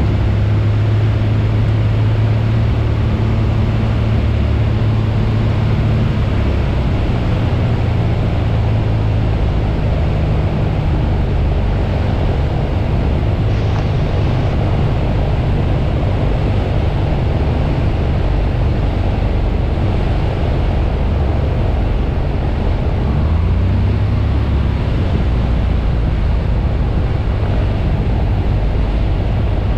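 Piper Cherokee Six's six-cylinder Lycoming engine running on a gusty crosswind approach, with a heavy rush of wind and airflow noise in the cabin. The engine note shifts as power is adjusted and rises briefly a little over twenty seconds in.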